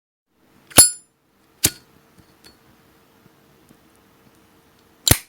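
Brushed brass Zippo lighter handled: three sharp metallic clicks of its hinged lid snapping open and shut, the first and loudest with a brief bright ring, the last near the end.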